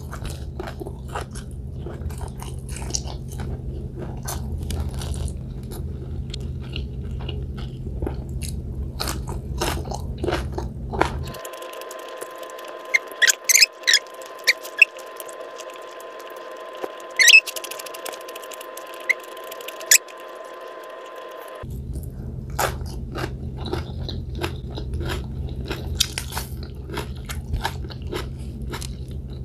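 Close-up eating sounds: crunching, biting and chewing of fried fish and rice eaten by hand, with quick crackles and clicks of fingers working the food. For about ten seconds in the middle the background changes to a steady hum, with a few louder, sharper crunches.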